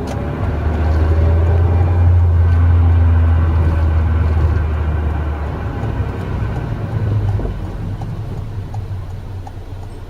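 Mazda NC Roadster driving, heard from inside the car: a steady low engine drone that eases off about five seconds in, then grows quieter toward the end, as when lifting off the throttle.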